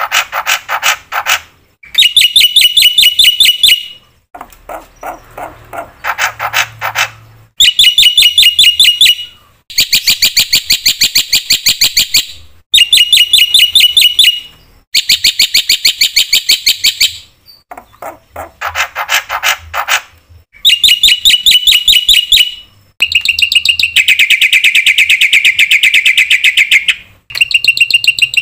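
Black-winged myna (jalak putih) singing. Loud bursts of rapid, buzzy rattling notes last about two seconds each, with short pauses between them, and a few softer, lower chattering phrases come in between.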